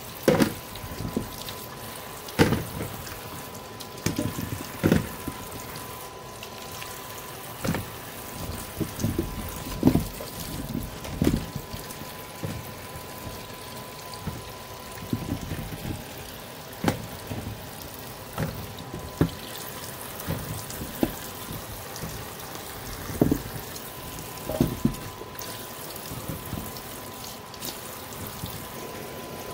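Water splashing and sloshing as peeled matooke bananas are washed by hand, with irregular knocks and splashes every second or so. A faint steady high tone runs underneath.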